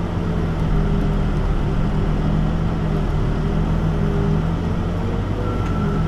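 Backhoe's diesel engine running steadily under load as the hydraulics work the hoe arm, heard from inside the operator's cab. A thin high whine comes in near the end.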